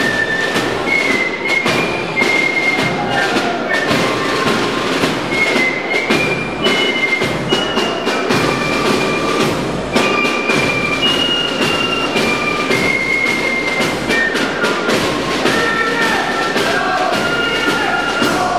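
Fife-and-drum marching band playing: a high fife melody of held notes over rapid, steady drumming.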